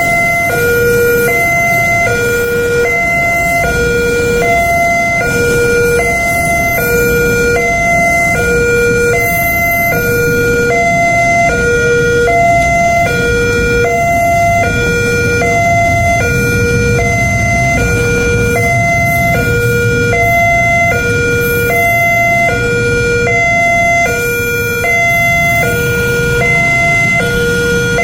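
Railway level-crossing warning siren sounding out of tune, a two-tone wail that alternates between a lower and a higher note, switching about every 0.7 s, over a low rumble.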